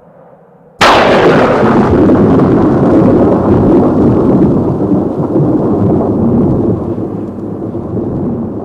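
A thunder-like boom: a sudden loud crack about a second in, then a long low rumble that slowly fades.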